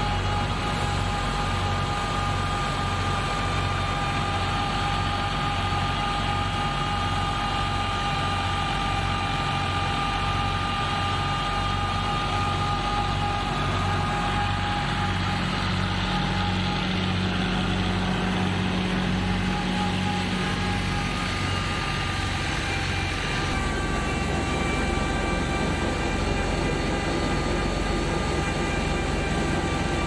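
Fiat 480 tractor's diesel engine running steadily, powering a belt-driven wheat thresher, with a regular low pulsing beat under a steady mechanical whine. The low beat evens out about two-thirds of the way through.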